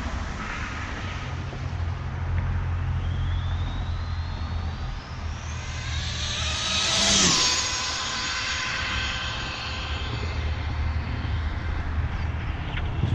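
Arrma Senton 3S RC truck, powered by a TP 2900kv brushless motor on a Castle XLX controller, making a high-speed pass. Its electric whine climbs in pitch as it approaches, is loudest about seven seconds in, then drops sharply in pitch as it goes by and fades away.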